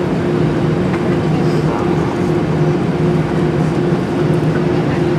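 Cabin noise inside an Airbus A320-family jet airliner taxiing: the engines running at idle thrust, a steady loud rush with a constant low hum.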